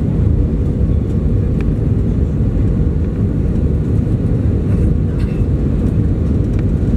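Steady low rumble inside the cabin of an Airbus A320 on approach, the engines and the rushing airflow heard from a seat over the wing.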